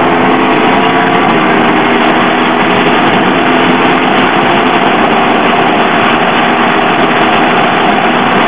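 Motorcycle riding at track speed: a loud, steady rush of wind noise with the engine's hum underneath, the hum clearest in the first couple of seconds.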